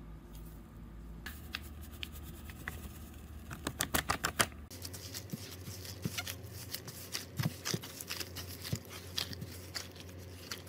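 A quick run of sharp clicks from a spoon working in a plastic mixing bowl, then hands kneading soft bread dough in the bowl with irregular soft squelches and pats.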